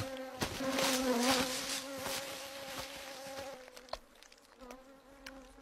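Bees buzzing in a steady drone as they defend their nest, fading away over the last couple of seconds.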